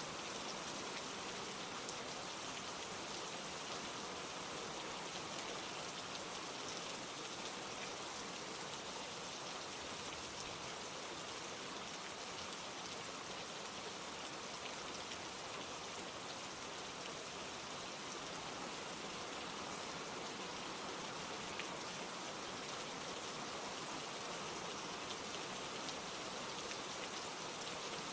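Steady rain falling, an even hiss with faint drop ticks scattered through it.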